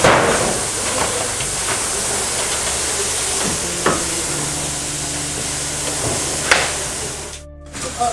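Burnt debris being shifted by hand, with three knocks over a steady hiss: one at the start, one about four seconds in, one near the end.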